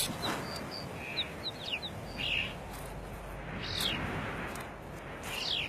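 Small birds calling: short high chirps through the first half, then two longer calls sliding downward in pitch, one about two-thirds in and one near the end, over a faint steady hiss.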